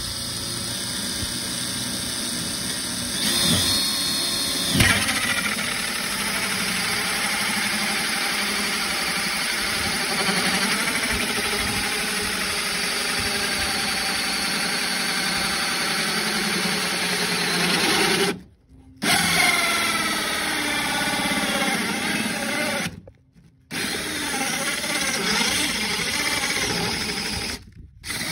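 Cordless DeWalt 20V brushless drill turning a 3 1/4 inch hole saw through a fiberglass boat deck, a steady cutting sound with three short breaks in the second half.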